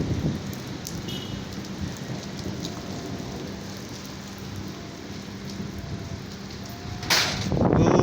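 Rain falling steadily in a storm, an even hiss. About seven seconds in, a strong gust of wind hits the microphone and the sound gets much louder.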